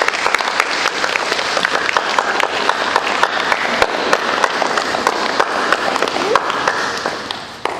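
A group of schoolchildren applauding, many hands clapping at once, dying away near the end.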